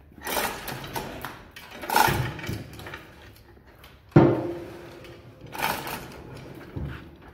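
Chain hoist and its hanging lifting chains clanking in scattered knocks as the load hangs on the gantry crane. A sharp metal clank about four seconds in rings briefly.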